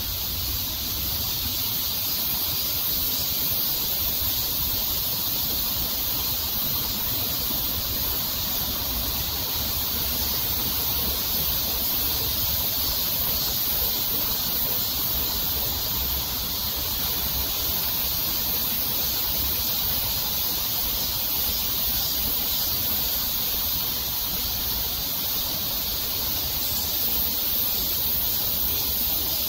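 A steady, high-pitched outdoor hiss with no separate sounds standing out.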